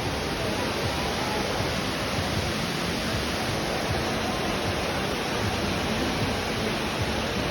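Indoor waterfall feature, water falling and splashing in a steady rush.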